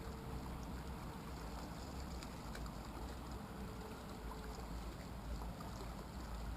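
Faint, steady riverbank background: an even hiss of flowing water over a low rumble.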